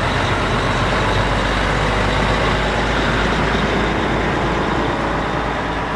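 Heavy lorry towing a long low-loader trailer passing close at low speed on a wet road: steady diesel engine noise with the hiss of many tyres on the wet surface.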